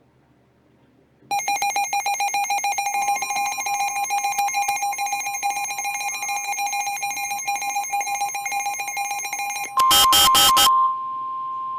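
Weather radio emergency alert tones ahead of a severe thunderstorm warning. After about a second of quiet, a harsh, rapidly pulsing alarm tone starts, joined a couple of seconds later by the steady high-pitched warning alarm tone. Near the end there are four short loud bursts of data noise, then the steady tone sounds alone and cuts off.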